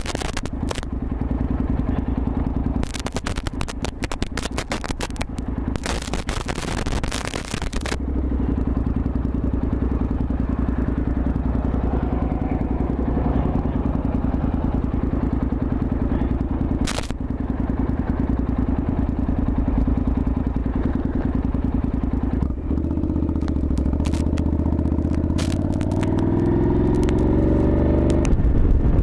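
Motorcycle engine running steadily, picked up by a helmet-mounted microphone, with loud crackling and scraping on the microphone over the first several seconds. Near the end the engine note rises as the bike accelerates.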